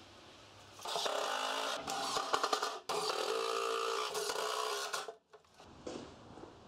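Cordless impact driver driving screws, in three runs of rapid hammering separated by short pauses, the last and longest ending about five seconds in.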